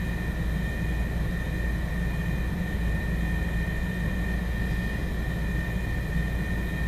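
Steady low background hum with light hiss and a faint high whine, unchanging throughout; no coughing or other distinct sounds.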